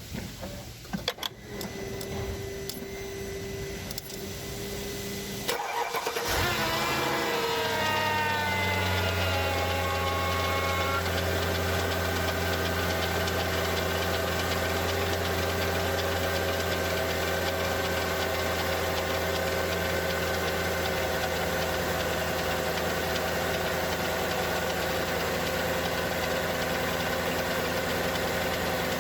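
A Mercedes-Benz E55 AMG's supercharged M113K 5.4-litre V8 starts from cold about six seconds in, after a few clicks and a steady hum. The revs fall from the start flare over the next few seconds and settle to a steady idle. A ticking, clicking noise comes from the left cylinder bank; the owner wonders whether the hydraulic lifters or the timing chain is the cause.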